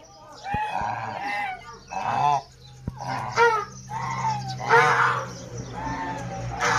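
Geese honking, a run of short loud calls one after another, over a low steady hum that sets in about two seconds in.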